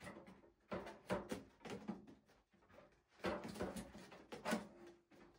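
Handling noise of a foam RC airplane's elevator being slid onto the horizontal stabilizer: irregular light clicks, taps and rubbing of foam and plastic parts, loudest about a second in and again twice in the second half.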